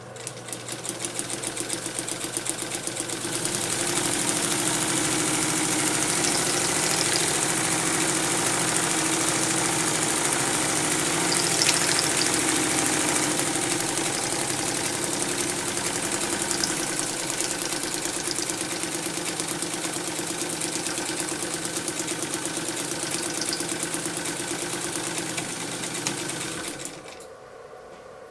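1952 Windsor Deluxe sewing machine running, stitching a line through a sheet of paper: a rapid, even clatter of needle strokes that speeds up over the first few seconds, holds steady, then stops shortly before the end.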